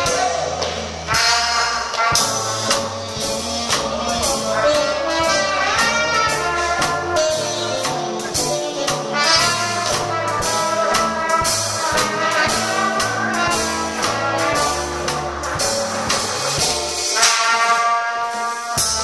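Live dance band playing jazz with horns over a drum kit keeping a steady beat.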